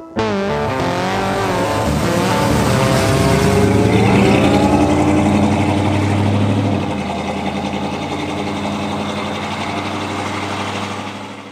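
1972 Chevrolet Monte Carlo's V8 engine revving and accelerating, its pitch gliding upward and loudest about four seconds in, then running at a steadier note that fades away at the end.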